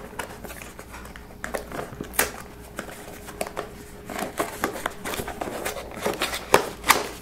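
Small cardboard product box being handled and opened by hand: cardboard scraping and rustling with many small clicks and taps. The sharpest knocks come about two seconds in and twice near the end.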